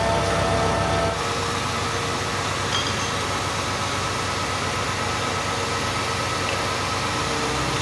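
Construction machinery engines running steadily, a continuous machine hum with a few constant tones; the deepest rumble drops away about a second in.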